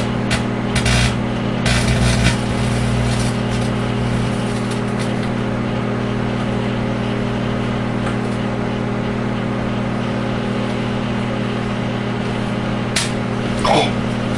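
Microwave oven running with a steady hum while metal inside arcs, giving short crackling snaps, bunched in the first couple of seconds and again near the end.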